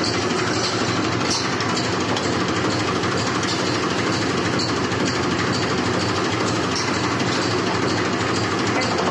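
Mahindra 265 tractor's diesel engine idling steadily while the clutch pedal is held down.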